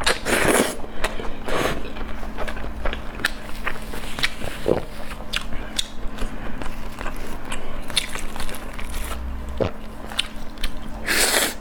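Close-miked eating sounds: biting, chewing and crunching, with many small sharp clicks and two louder, longer crunches, one just after the start and one near the end.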